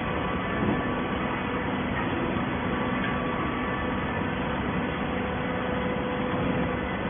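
Hydraulic scrap carton baler running: a steady machine hum and hiss with a few faint held tones and no strokes or bangs.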